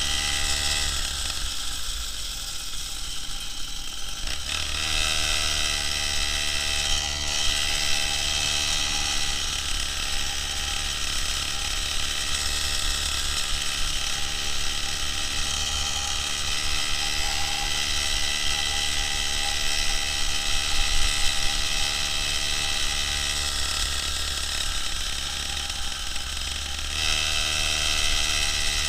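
A chainsaw's two-stroke engine powering a homemade moped, running on the move. Its note drops back briefly a second or so in and again near the end, then picks up.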